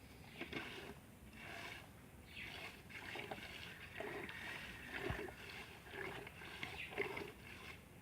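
Cow being milked by hand: jets of milk squirting into a bucket in a repeating series of short hissing splashes, roughly one to two a second.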